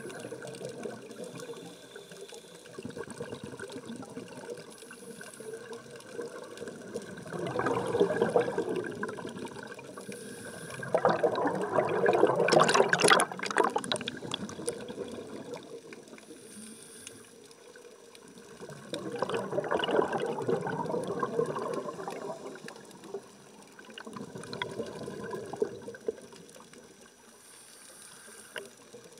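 Scuba diver breathing underwater: bubbling bursts from the regulator's exhaust, one per exhalation. There are four bursts several seconds apart, the loudest about twelve to fourteen seconds in.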